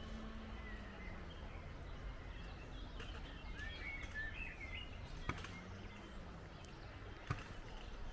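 Outdoor ambience: a steady low rumble of background noise, with a small bird chirping a few times about three to four seconds in. Two sharp ticks come later, and a faint low drone rises and falls twice.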